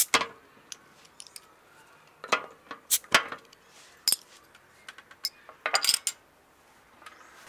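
Glass beer bottles being opened with a metal bottle opener: a series of sharp metallic clinks and clicks against the glass, spread out over several seconds with pauses between.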